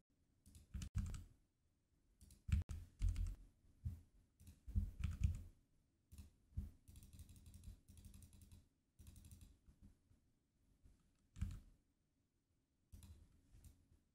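Faint computer keyboard keystrokes and mouse clicks in short irregular clusters, with pauses between them.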